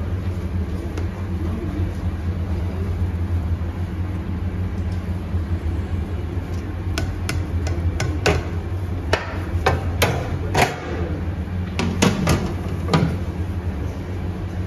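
Round perforated metal skimmer clinking and knocking against a stainless steel bowl as rice is scooped in: about a dozen sharp metal clinks from about halfway through, over a steady low hum.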